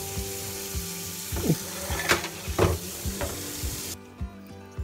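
Tap water running into a kitchen sink as a fish is rinsed under it, cutting off abruptly near the end. Background music with a steady ticking beat runs under it.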